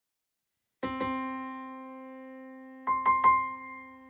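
Piano music: a chord struck about a second in that rings on and slowly fades, then three quick notes near the end.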